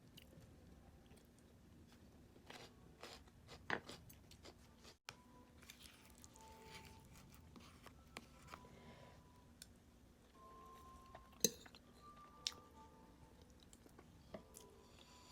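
Faint close-up eating sounds: a person chewing and crunching food, with scattered sharp clicks, the loudest about two thirds of the way through.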